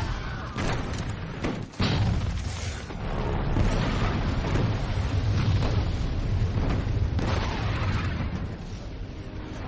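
Film sound effects of a battle: a run of explosions. Several sharp blasts come in the first two seconds, with a brief drop just before a big blast, then a continuous rumble of blasts and falling debris that eases near the end.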